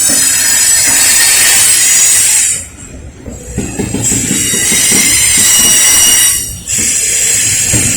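Freight train cars rolling past, steel wheels squealing against the rails in thin high steady tones over a rumble. The squeal drops away briefly twice, a little under 3 seconds in and again about 6.5 seconds in.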